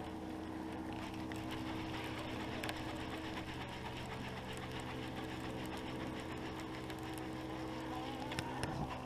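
A small motor humming steadily, with a few light clicks and some knocks near the end.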